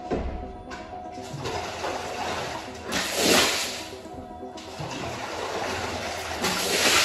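Water rushing across a soaked rug on a tiled floor in two loud surges, about three seconds in and again near the end, after a low thump at the start. Background music plays throughout.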